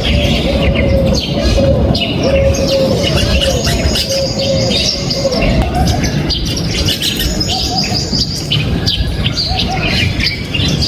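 A flock of backyard birds chirping, with many short overlapping chirps. A lower arched note repeats again and again beneath them.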